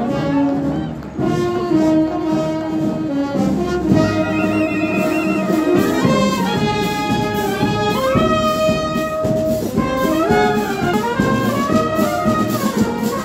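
Street brass band playing a processional march, a melody of held brass notes moving from note to note.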